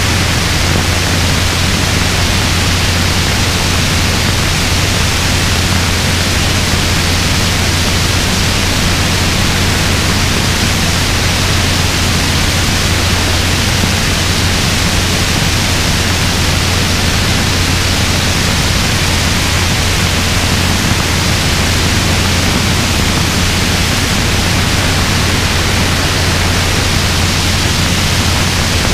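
Robinson R22 helicopter in flight: a loud, steady rush of noise with a constant low hum underneath.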